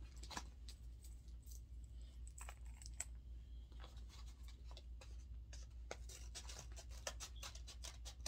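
A paper mailer being opened by hand: a run of small scratches, rustles and clicks that come faster in the last couple of seconds, over a steady low hum.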